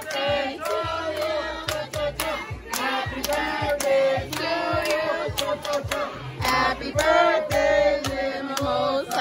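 A song playing: a sung vocal melody over a bass line and a steady drum beat.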